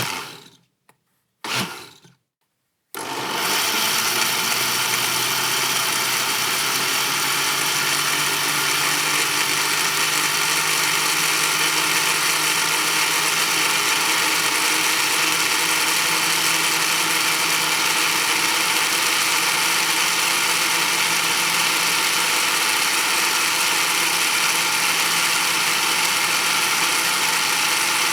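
Single-speed kitchen blender pulsed twice briefly, each time winding down, then switched on about three seconds in and running steadily at its one speed.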